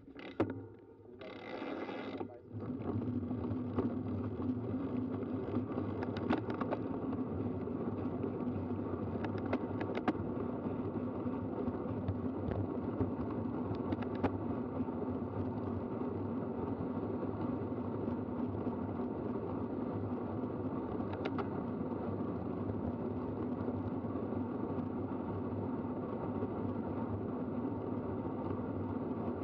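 A road bike rolling at speed, heard from a camera mounted on it: steady whirring and rattling of the chain, drivetrain and tyres on the road, with scattered small clicks. It starts with a brief rush of noise about a second and a half in as the bike sets off.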